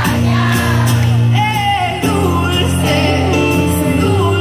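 Live pop music: a band comes in with sustained chords and bass, and singing joins over it about a second and a half in, as the crowd noise gives way.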